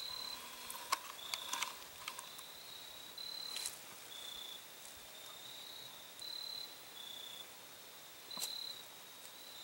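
Crickets trilling: a high, steady trill in short bouts under a second long, repeating about once a second with the pitch shifting a little from bout to bout. A few sharp clicks sound through it.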